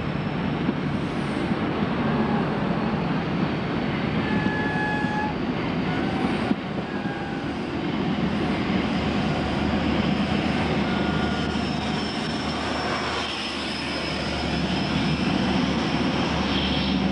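Intercity 125 High Speed Train running through the station: the Mk3 coaches roll past with steady wheel-on-rail noise. From about halfway there is a steady deep hum from a Class 43 diesel power car.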